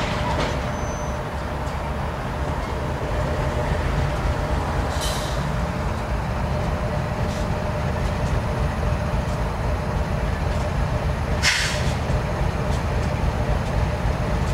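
GE diesel freight locomotives running with a steady low engine rumble. Two short bursts of air hiss break in, once about five seconds in and again late on, typical of air being vented from the locomotives' air brake system.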